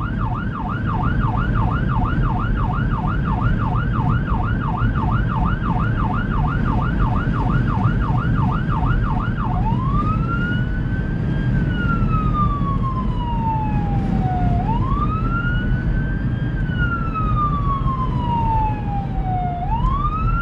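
Emergency siren of a responding fire department vehicle on yelp, rapid up-and-down sweeps about three a second. About ten seconds in it switches to a wail that rises quickly and falls slowly, over the steady low rumble of the vehicle's engine and road noise.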